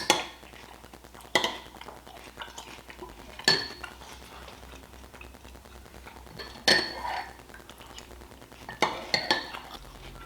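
A spoon clinking against a cereal bowl while eating cereal with milk: sharp separate clinks with a short ring, every second or two.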